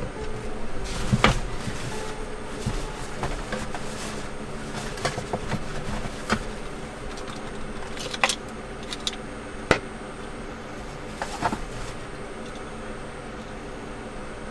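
Scattered sharp clicks and light knocks of small plastic items being handled on a wooden counter, over a steady hum with a faint high whine that stops near the end.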